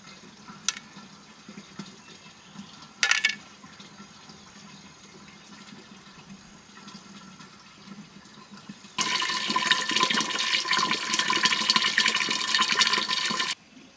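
A thin stream of water pours into a metal pot, filling it: a loud, even splashing with a steady ringing tone. It starts suddenly about nine seconds in and cuts off sharply just before the end. Earlier, a single click and a short sharp burst stand out over a quiet background.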